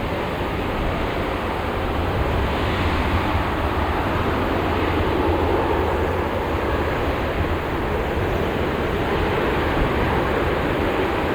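Airbus A321neo's jet engines at takeoff thrust during the takeoff roll: a steady, loud rush of engine noise with a deep low rumble, growing slightly louder a few seconds in.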